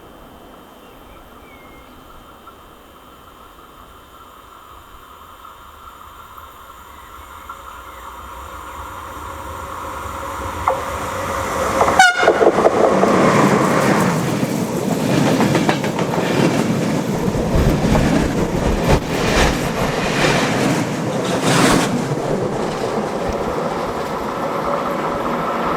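Intercity passenger train hauled by a Siemens Smartron electric locomotive, approaching and passing close by. Its rumble builds from about a third of the way in, a sudden rush comes as the locomotive passes near the halfway point, and then the wheels clatter over the rail joints as the carriages go by.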